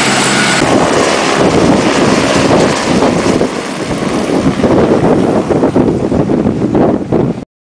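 A helicopter lifting off and climbing away close by. A steady engine whine gives way, about half a second in, to loud rotor noise and downwash buffeting the microphone. The sound cuts off abruptly near the end.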